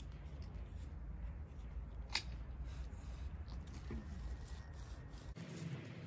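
Hand trowel scraping and digging in garden soil, with small scratchy clicks and one sharper click about two seconds in. A steady low rumble sits underneath and cuts off abruptly shortly before the end.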